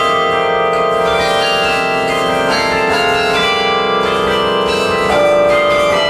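Carillon bells played from the baton keyboard: a tune of struck bells, each note ringing on under the next in a dense wash of overlapping bell tones.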